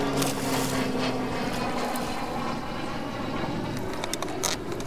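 A distant engine drone, its pitch falling slowly as it fades out about two and a half seconds in, over steady wind and water noise. Near the end come a few sharp splashes as the hooked redfish thrashes at the surface beside the paddleboard.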